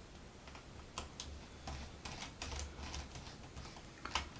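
Faint, irregular clicks and ticks of a screwdriver turning a small screw out of a graphics card's cooler.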